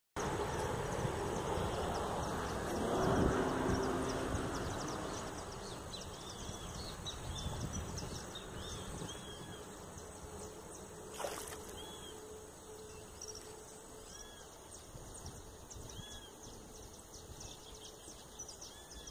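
Outdoor pondside ambience: a low rushing noise, loudest about three seconds in and fading out by about five seconds, then a bird's short chirps repeating every second or two over a faint steady high tone. A single sharp click about eleven seconds in.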